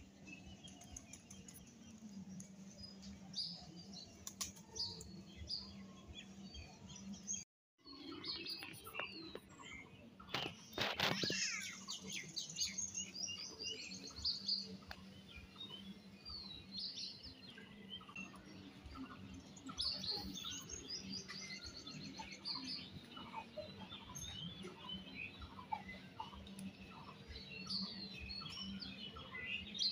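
Many small birds chirping and twittering in short high calls, over a steady low hum. The sound cuts out briefly about seven seconds in, and a louder flurry of sharp rustling strokes comes about ten to eleven seconds in.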